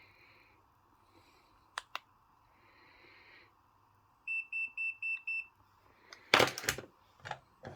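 A small electronic device beeping five times in quick succession, short high-pitched beeps evenly spaced over about a second. Two sharp clicks come before the beeps, and a loud clatter of handling noise follows near the end.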